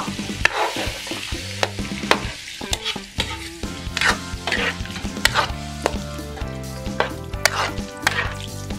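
Beef blood and vinegar mixture poured into a sizzling wok of sautéed beef. A metal ladle clinks and scrapes against the wok in sharp knocks every second or so.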